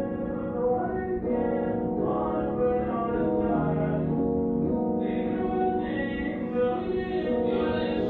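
Background music of slow, held chords that change about every second or so.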